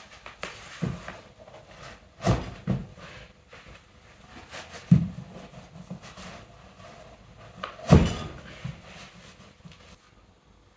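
A few separate knocks and thumps with faint handling noise between them, the loudest about five and eight seconds in.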